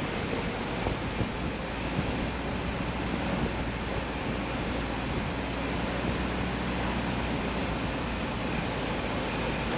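Steady rushing road and wind noise inside a moving vehicle, with a low rumble underneath.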